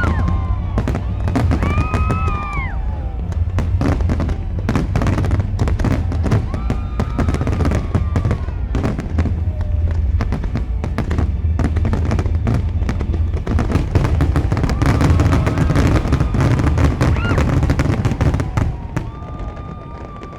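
Fireworks display: a dense run of bangs and crackling over a deep rumble, dying away near the end.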